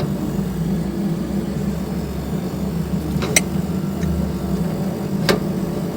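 Split AC outdoor unit running with a steady hum after a completed R22 gas charge. There are sharp metallic clinks about three seconds in and again near five seconds.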